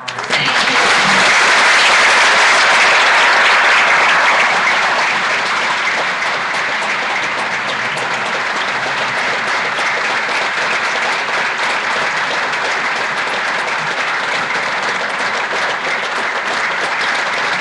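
Audience applauding, starting suddenly and loudest for the first few seconds, then settling to a steady level.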